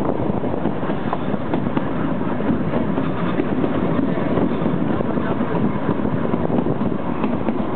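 Kalka–Shimla narrow-gauge toy train running: a steady rumble with many small rattles of the carriage on the track.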